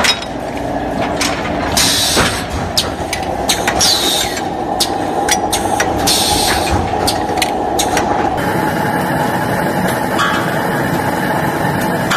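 Automatic vertical brass hot-forging press line running: quick metallic clanks and clicks of parts, with hissing bursts about every two seconds. After about eight seconds it settles into a steadier machine drone with fewer clanks.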